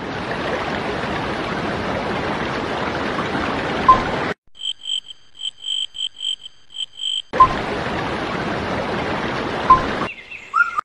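A steady rush of running water, broken in the middle by about three seconds of a frog calling in a run of short, high croaks, roughly three a second. The water sound then comes back, and a few brief chirps follow near the end.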